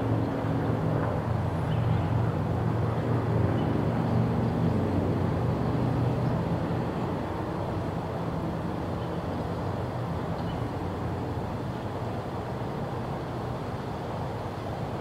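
A diesel locomotive's engine rumbling low and steady from a train out of sight, slowly fading away over the second half.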